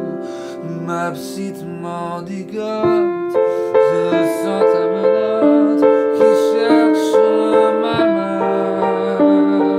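Piano played solo: a slow, gentle melody over chords, with new notes struck about every half second.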